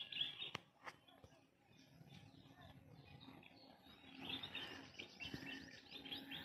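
Birds chirping in quick repeated calls, a brief burst at the start and a fuller stretch from about four seconds in, over a faint steady low hum.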